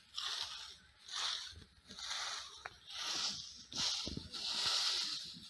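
Stiff twig broom sweeping bare, dusty dirt ground: a scratchy swish on each stroke, repeated about once a second.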